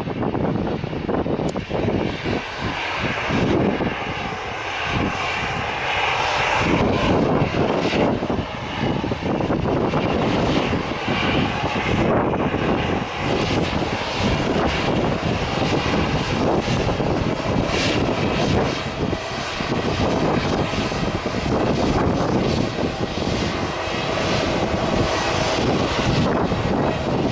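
Fixed-wing aircraft engines running loudly and steadily, heard over wind buffeting the microphone.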